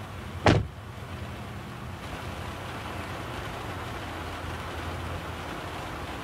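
An SUV's hood slammed shut: one sharp bang about half a second in. A steady hiss of rain follows.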